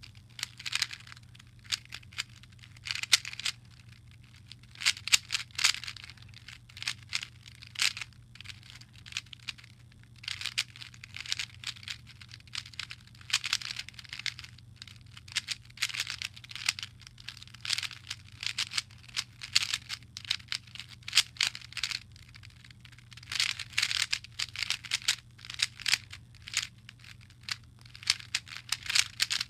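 Rubik's cube being turned fast during a timed speedsolve: rapid runs of plastic clicking and clacking as the layers turn, in bursts of a few seconds broken by short pauses.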